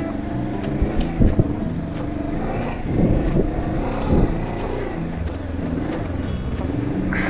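Honda CB500X's parallel-twin engine running as the motorcycle is ridden off road, the revs rising and falling a few times, with a few sharp knocks about a second in.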